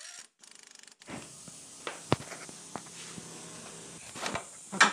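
Hand tools working on a car's front suspension lower arm: a quick run of even clicks, then scraping and scattered metal clinks, with a louder clank near the end.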